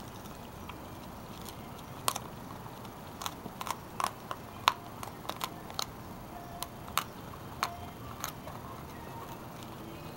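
Pit bull puppy chewing a dried pig ear: irregular sharp crunches and cracks as it bites down, most of them between about two and eight seconds in.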